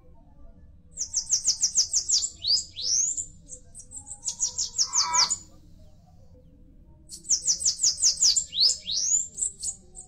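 Bananaquit singing: three bursts of rapid, high, thin notes, each note sliding downward, with a few rising slides at the end of each burst.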